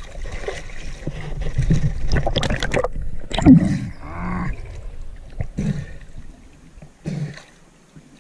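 River water splashing and gurgling at the surface close to the microphone as a spearfisher swims and hauls in his speargun line, with one louder splash about three and a half seconds in. It dies down near the end.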